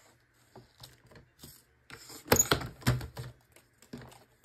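Paper trimmer in use: paper is set in place and a strip is cut, giving a run of light clicks, taps and paper rustles, loudest a little past the halfway point.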